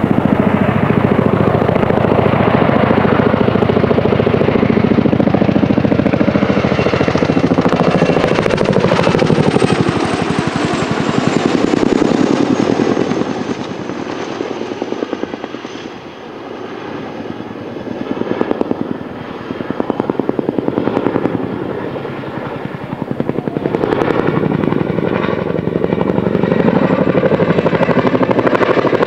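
CH-47 Chinook tandem-rotor helicopter flying overhead: the rapid, rhythmic beating of its two rotors with a high turbine whine that slides down in pitch. It fades about halfway through as the helicopter turns away, then grows loud again.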